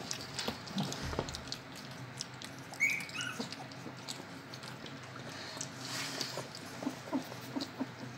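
Staffordshire bull terrier puppies, under a month old, being bottle-fed: soft wet clicks of licking and smacking, with a brief high squeak about three seconds in.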